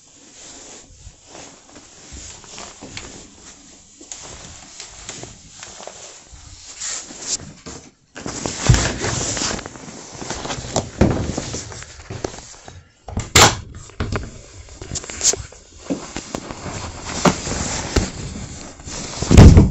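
Handling noise on a phone's microphone: irregular rubbing and scraping with scattered sharp clicks and knocks. It gets busier about halfway through, and a loud thump comes just before the end.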